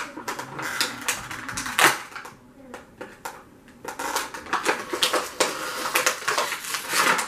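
Stiff plastic toy packaging crinkling and crackling in the hands as it is twisted and pried open, a quick irregular run of clicks with one sharp crack about two seconds in.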